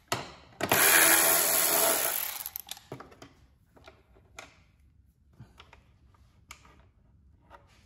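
Milwaukee cordless electric ratchet running for about a second and a half as it backs out an 8 mm bolt, then stopping. After it, a few light clicks and taps as the loosened bolt and parts are handled.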